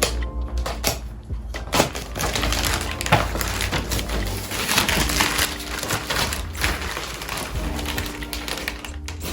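Crackling, crinkling handling noises with irregular clicks and knocks, as of objects being handled and set down.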